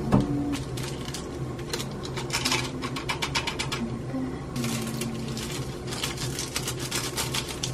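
Crinkling and rustling of instant ramen seasoning packets being torn open and shaken over a block of dry noodles in a saucepan, with clicks as the noodles and flakes land. A woman hums a few short notes in between.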